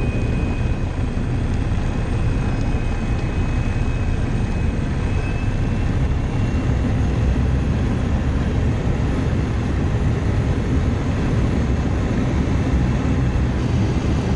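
Pilatus PC-6 Porter's turboprop engine and propeller running steadily as the plane taxis, heard from inside the cabin. A thin high whine sits over the engine noise and rises slightly about five seconds in.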